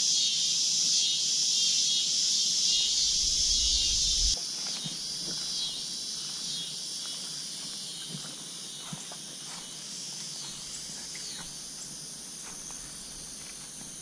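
Chorus of insects, a steady high-pitched buzz, which drops suddenly to a fainter chorus about four seconds in, with a few faint clicks after.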